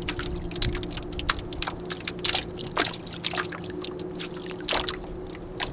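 Water lapping and splashing in quick, irregular slaps against the hull of an 11 ft Snark sailboat under sail, over a faint steady hum.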